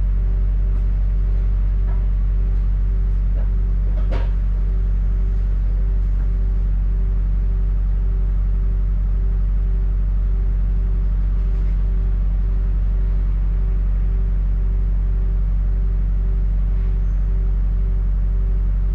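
London double-decker bus engine running steadily, a low, unchanging hum heard from inside the bus. A faint tone pulses about twice a second throughout, and there is a single short knock about four seconds in.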